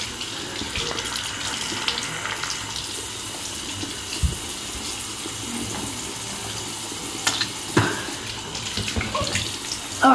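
Bathroom tap running steadily into the sink, with a few light knocks on the counter; the water stops right at the end.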